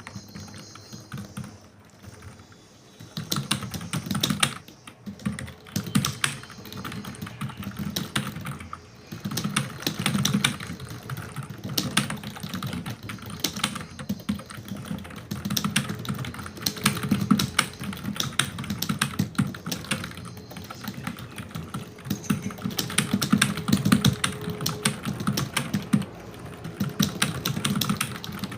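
Fast typing on a computer keyboard: a rapid run of keystroke clicks that starts about three seconds in and carries on with brief pauses.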